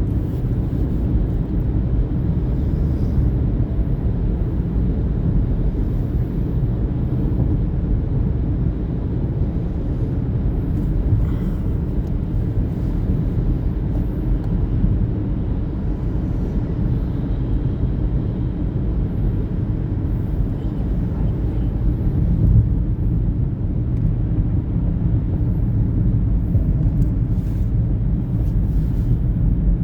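Steady low rumble of a moving vehicle: road and engine noise, with no breathing rhythm in it.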